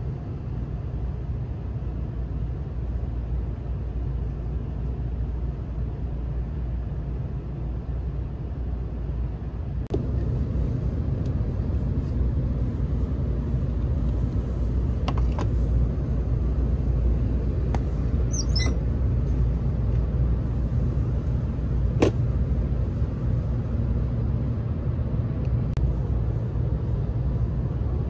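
Steady low rumble of a Kyushu Shinkansen 800 series train running, heard inside the passenger cabin; it grows louder about ten seconds in. A few sharp clicks stand out over it.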